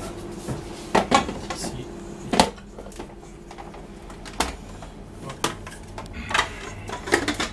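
Sharp metal and plastic knocks and clicks as a stand mixer's stainless steel bowl and clear plastic splash guard are handled and fitted onto the mixer: separate knocks spread through, with a quick cluster of them near the end.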